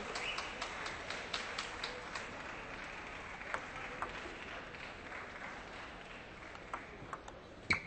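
Spectator crowd applauding a won point in a table tennis hall, the clapping dying away over several seconds.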